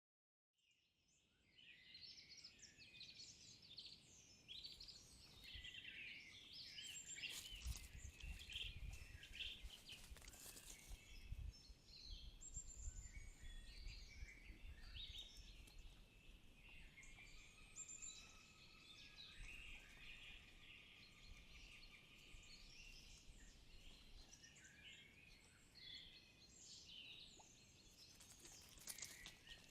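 Several songbirds singing and calling at once, faint, with many short chirps and trills overlapping and one longer held whistled note near the middle. A few low knocks come about eight to eleven seconds in.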